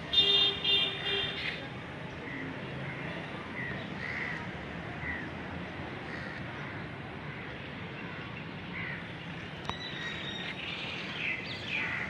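Birds calling: a loud call in the first second and a half, then short chirps scattered through the rest and a cluster of calls near the end, over steady faint background noise.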